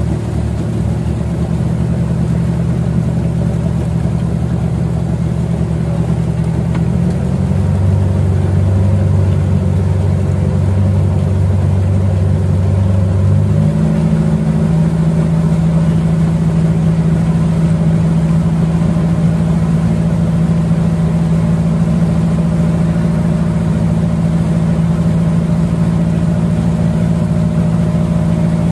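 Boat engines running steadily at speed, a low drone heard from a small boat running close behind a motor jukung, with the wash of water under it. The engine note shifts about seven seconds in and again around fourteen seconds, then holds steady.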